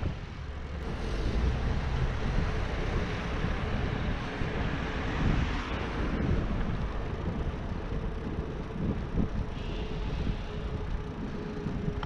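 Steady wind and road noise from a bicycle being ridden over pavement, with low tyre rumble and wind on the handlebar-mounted microphone.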